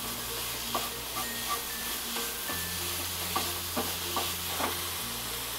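A spatula stirring and scraping grated coconut and melting jaggery around a hot pan, with a soft, steady sizzle and several light taps and scrapes of the spatula against the pan.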